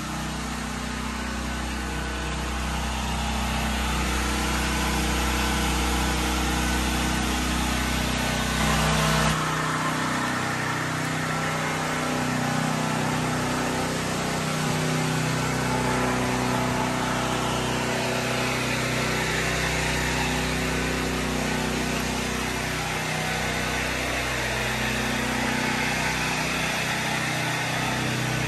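Steady drone of small engines running, the deepest hum dropping away about nine seconds in.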